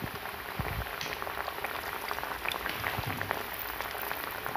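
Hot oil sizzling around rounds of wheat-flour and jaggery dough as they deep-fry in a pan: a steady hiss with a dense patter of tiny pops.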